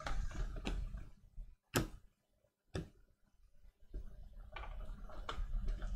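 Hard plastic trading-card cases clicking and clacking as they are handled and set down on a desk, a few sharp clicks with the loudest about two seconds in and a cluster near the end, over a low rumble of handling.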